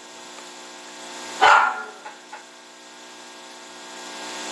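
A dog barks once, short and sharp, about a second and a half in, and barks again right at the end, over a steady faint hum.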